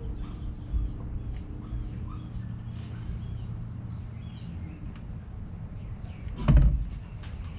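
Light clicks and clinks of tools and metal engine parts being handled, over a low steady rumble, with one loud knock about six and a half seconds in.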